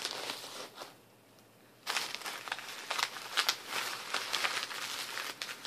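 Paper crinkling and rustling as a package is unpacked by hand: a short rustle, a pause of about a second, then continuous crackly crinkling.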